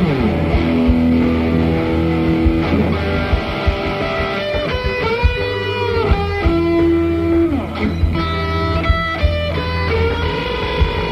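Electric guitar played through a Fuzz Face fuzz pedal and a wah-wah pedal, picking out a lead line of held notes, several of them bending in pitch.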